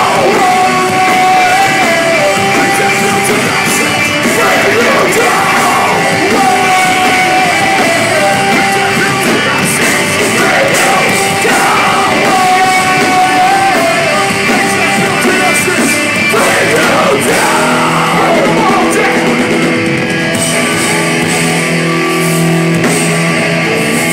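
Metalcore band playing live at full volume: distorted electric guitars, bass and drums with shouted vocals, heard from within the crowd. A high guitar line keeps recurring over the riff, and low held notes come in near the end.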